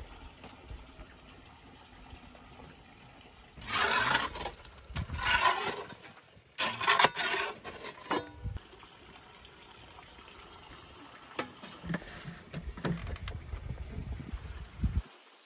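Hot embers being raked and pushed across the tiled floor of a wood-fired dome oven with a long wooden pole: three loud scraping, rustling passes in the first half, then only a few light knocks.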